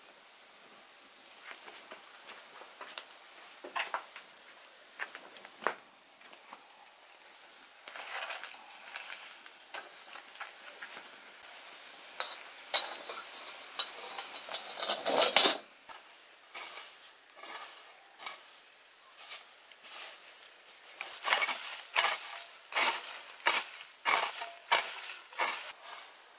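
Cooking over a wood fire on a metal grill: clicks and scrapes from turning foil-wrapped fish, with firewood crackling. A sizzling hiss builds midway and ends in a loud metal clank from a wok, followed by a quick run of sharp clicks and knocks.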